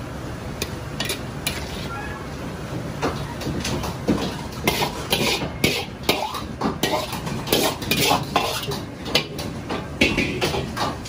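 Metal ladle scraping and clanking against a wok and plates as a stir-fry is scooped out and served. The clatters are sparse at first and come thick and fast from about four seconds in, over a steady background hum.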